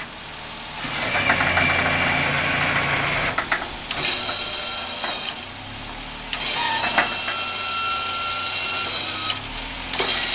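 Electric-hydraulic pump of a Black Line snow plow running in several bursts of a few seconds each, with a steady whine in the longest, as the blade is moved and angled side to side, over the Suzuki mini truck's engine idling.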